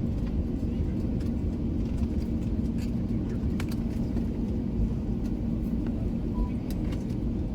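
Steady low vehicle rumble with a constant hum, heard from inside just after landing, with a few faint clicks.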